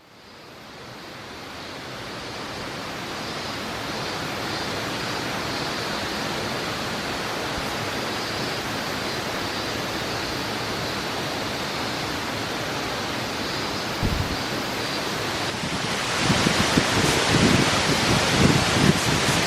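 Steady rush of a tall plunge waterfall, water dropping about 63 m straight down a cliff face, fading up over the first few seconds. Near the end it grows louder, with low gusts of wind buffeting the microphone.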